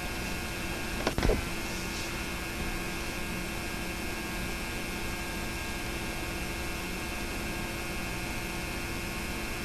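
Steady electrical mains hum and tape hiss from an old transfer recording of a silent film, with a quick double click and a short thump about a second in.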